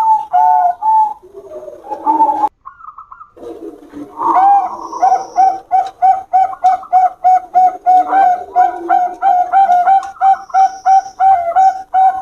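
Zebra doves (Bangkok perkutut) singing: a fast run of short, hooked cooing notes, several a second. There is a brief break about two and a half seconds in.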